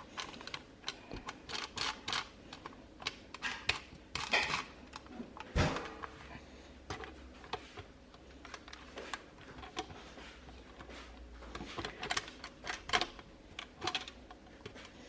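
Small irregular clicks and taps of screws being turned by hand and of fingers handling the bottom cover of an Intel NUC mini PC, with one louder knock about five and a half seconds in.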